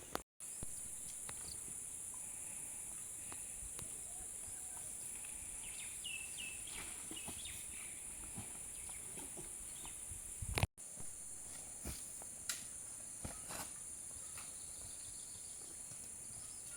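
Steady high-pitched drone of insects, with a few short bird chirps about six seconds in and scattered faint knocks. The sound cuts out to silence for a moment twice, just after the start and about ten seconds in.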